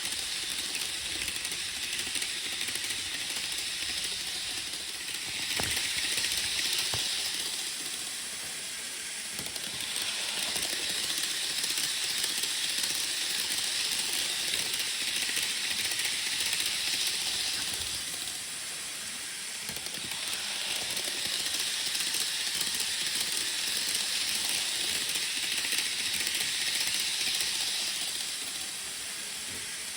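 Model train running on its track: a steady rolling hiss that swells three times as the train comes round close, with a few faint clicks over the rail joints.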